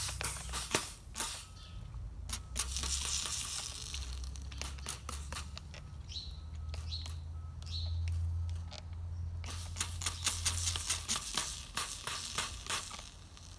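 WD-40 squirted from a trigger sprayer onto a torch-heated steel bearing race and hub, sizzling and crackling with many irregular pops as the oil flashes to smoke on the hot metal. Hissing swells and fades between squirts. The oil is cooling the seized race so that it contracts.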